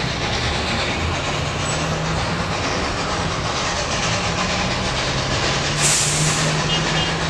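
Steam locomotive approaching from a distance, a steady low rumble of the train on the move, with a brief high hiss about six seconds in.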